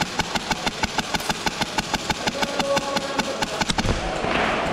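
Airsoft rifle firing a long full-auto burst, about eight shots a second, stopping a little before the end and giving way to a steady hissing noise.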